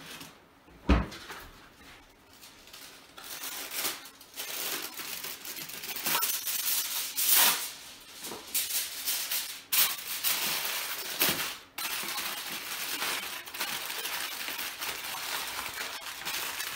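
Aluminium foil crinkling and rustling as it is torn off and folded into a packet by hand, in uneven crackly bursts. A single sharp knock comes about a second in.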